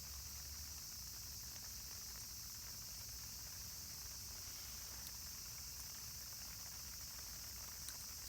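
Steady, faint high-pitched chorus of insects, such as crickets, with a few faint ticks.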